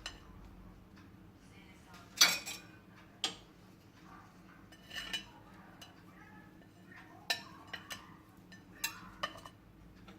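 Cutlery clinking and scraping on a dish while a baked crepe cake is cut and served: a few scattered clinks, the sharpest about two seconds in.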